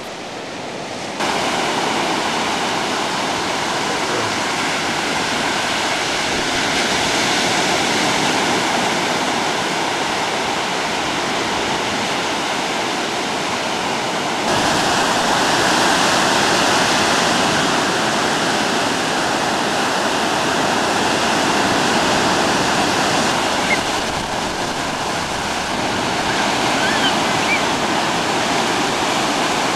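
Ocean surf breaking and white water washing around the shallows, a steady loud rushing wash of waves.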